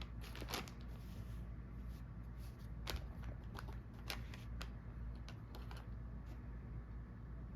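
Paper packaging rustling and crinkling: a scatter of small crackles and clicks at irregular intervals, over a low steady hum.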